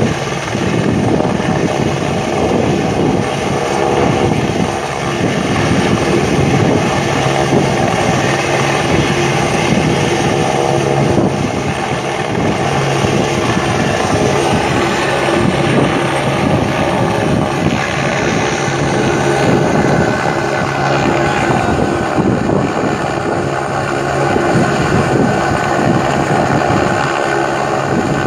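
Light single-rotor army helicopter hovering low over the water, its rotor and turbine engine making a loud, steady drone throughout.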